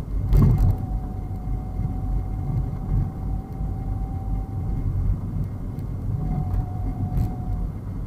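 Low rumble of a car driving through city traffic, with a thump about half a second in and a faint steady whine that comes and goes.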